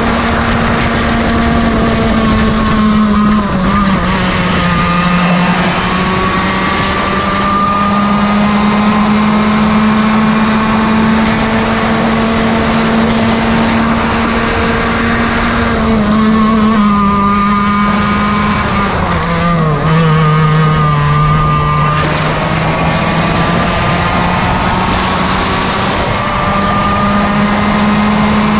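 Racing kart's Yamaha KT100 two-stroke engine with can muffler running at high revs. Its pitch drops off and climbs back a few times (around 3 seconds in, around 16 seconds and around 19 to 22 seconds), as the kart slows for corners and accelerates out. Other engine notes move independently alongside it.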